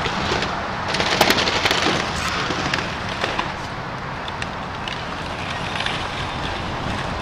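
Demolition of a building by an excavator: a steady rushing noise with a burst of cracking and clattering debris about a second in and scattered cracks after.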